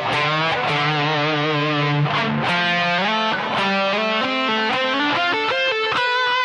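Overdriven electric guitar playing a single-note blues lead phrase, its notes sliding and wavering with vibrato, ending on a held note about six seconds in.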